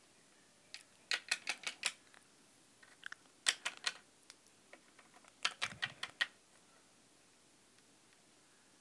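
Small plastic Littlest Pet Shop figurines tapping on a hard surface as they are hopped along: three quick runs of light clicks, about a second in, around three and a half seconds in, and near five and a half seconds in.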